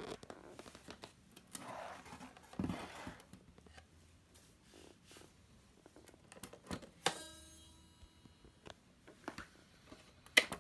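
Mechanical clicks and handling noise from a prop control box's rotary drum switch being turned by its T-handle, with one click about seven seconds in that rings briefly in a metallic tone. A sharp click near the end, the loudest sound, as a push button on the box is pressed.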